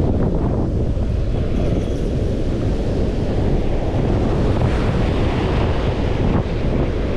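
Wind buffeting the microphone over ocean surf breaking and washing through the shallows, a steady loud rumble.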